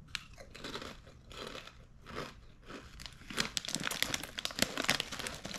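Crunching and chewing a salt and vinegar crinkle-cut potato chip, with the chip bag crinkling in hand. Many sharp crackles, thickest about three to five seconds in.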